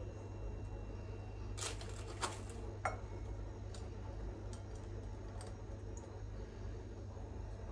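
A few light clicks and taps come about two seconds in, followed by one short ringing clink, as pastry fingers are set into a glass baking dish. A steady low hum runs underneath.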